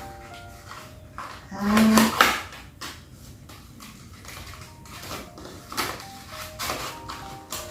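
Knocks, clatters and scrapes from packaging and accessories being handled in an opened product box, loudest in one scraping burst about two seconds in.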